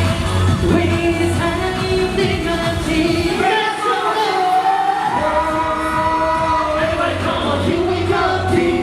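Pop song sung live by a male group over a backing track with a steady bass beat. The beat drops out for about a second and a half midway while the singing carries on.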